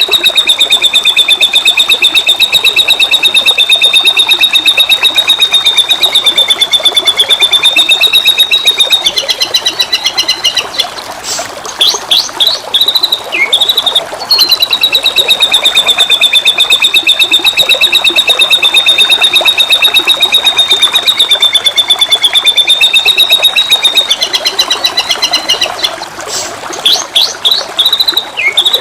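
White-rumped shama (murai batu) singing. A long, very fast trill holds at a high pitch for about ten seconds and ends in a few short separate notes, and the whole phrase repeats once. Running water sounds faintly underneath.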